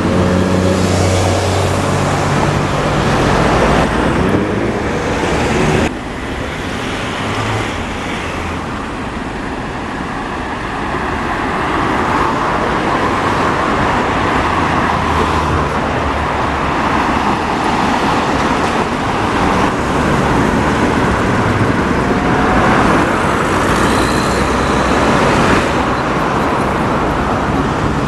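City road traffic: double-decker buses and cars passing close by, with a bus engine running loudly in the first few seconds. The loudness drops abruptly about six seconds in, then the traffic sound builds again.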